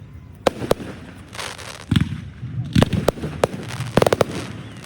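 Fireworks going off: a series of sharp bangs and booms, with a rapid run of crackling reports about four seconds in.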